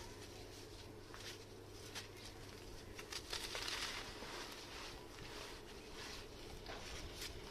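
Crunchy red sand chunks crumbling and crackling with many small cracks, swelling into a louder stretch of crumbling about three seconds in.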